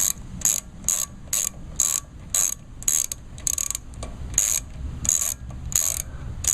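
Socket ratchet wrench backing out a 10 mm bolt. Its pawl clicks in a short burst on each return swing, about twice a second, with a brief pause partway through.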